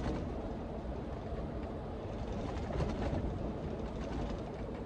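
Steady low rumble of a lorry's running engine heard inside the cab.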